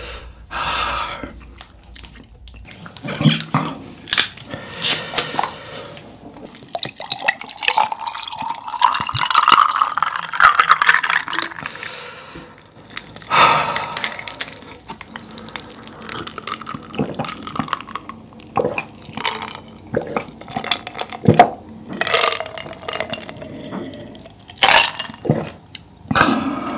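Close-miked eating sounds: wet chewing and slurping of saucy tteokbokki and glass noodles, with sharp clicks of chopsticks against the bowl throughout. Also heard is a drink in a glass with ice, sloshing as it is poured and drunk.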